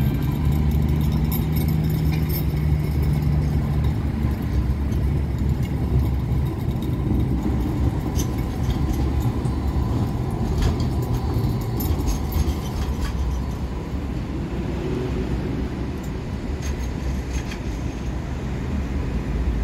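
City street traffic: motor vehicles running past with a steady low rumble, strongest in the first few seconds.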